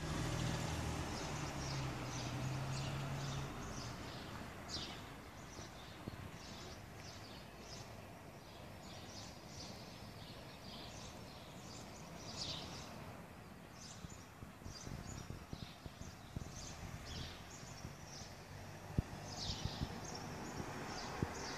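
Small birds chirping busily over a steady wash of outdoor background noise, with a low hum in the first few seconds and a few knocks near the end.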